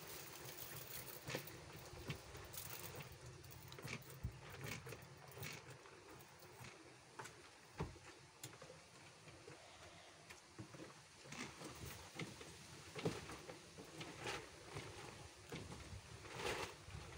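Faint, scattered knocks, clicks and rustling from hands-on work in a chicken coop, with a sharper knock about eight seconds in and a busier stretch near the end.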